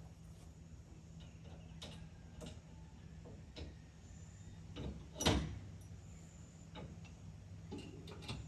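Scattered light knocks and clicks, with one louder thump about five seconds in, over a faint steady low hum.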